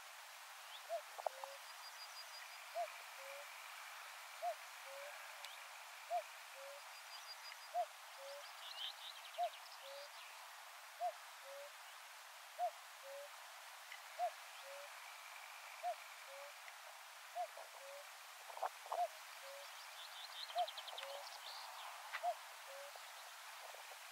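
Common cuckoo calling its two-note "cuck-oo", the second note lower than the first. It repeats evenly about every second and a half, some fourteen times, faint and far off, while other small birds chirp faintly.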